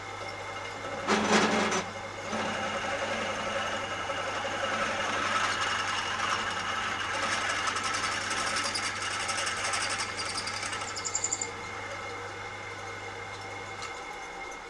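Pillar drill running with a 7/16 in bit, feeding into the cast aluminium body of a BTH KC2 magneto to drill the tapping hole for a half-inch BSF thread. There is a short loud knock about a second in, then the cutting noise for about nine seconds, and the motor hum stops near the end as the drill is switched off.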